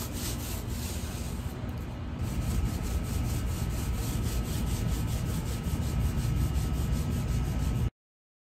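Small paint roller rolling shellac-based primer onto wood furniture: quick back-and-forth strokes making an even, rhythmic rubbing that cuts off suddenly near the end.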